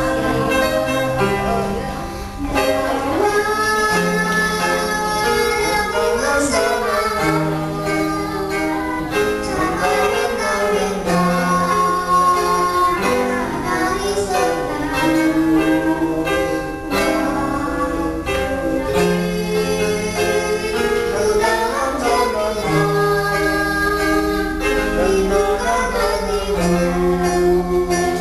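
A young girl singing a song solo into a microphone, holding notes for a second or two each, over an electronic keyboard accompaniment.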